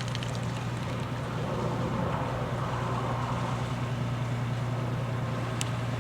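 Fishing boat's engine running with a steady low hum in the harbour.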